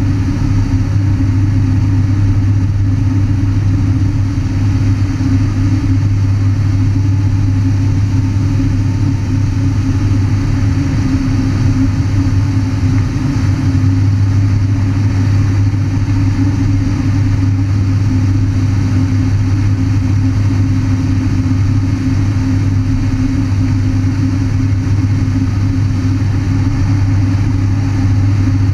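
Thrush crop-duster's 750 hp Pratt & Whitney turboprop engine and propeller heard from the cockpit in flight: a loud, steady drone with a low hum that holds even throughout.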